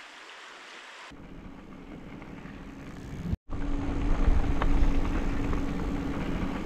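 Wind rushing over a handlebar-mounted camera's microphone and tyre noise on gravel as a loaded bikepacking bike rolls along a gravel road, a loud low rumble with a steady low hum. It follows a fainter steady hiss, breaking off for an instant about three and a half seconds in before the rumble comes in loud.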